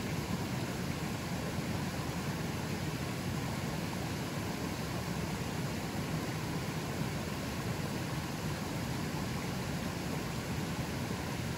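A river's fast, fairly strong current flowing, a steady rushing noise that stays even throughout.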